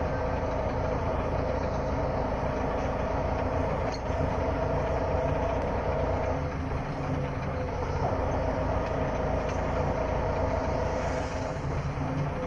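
Auto rickshaw engine running as heard from inside the cabin while riding: a steady drone with road and rattle noise. Its tone shifts briefly about four seconds in, and again in the middle.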